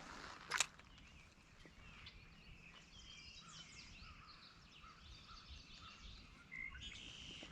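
Faint songbirds chirping and calling in the woods, with one sharp click about half a second in.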